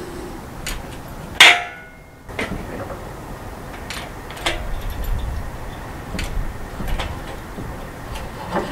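Hydraulic engine hoist being pumped by its long handle to raise an engine, with irregular metallic clicks and knocks. One loud clank with a brief ring comes about a second and a half in.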